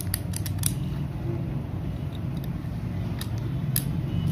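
Small metal slingshot parts clicking and tapping as they are handled, several clicks in quick succession near the start and two more about three seconds in, over a steady low hum.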